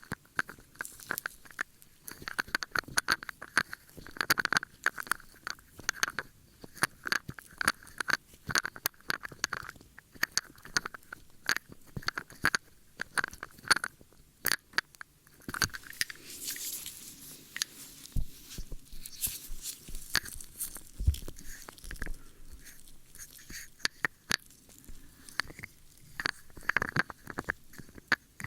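Close-miked ASMR ear-cleaning sounds: dense crackling and scratching right at the microphone. About halfway through comes a softer brushing hiss and a few low thumps.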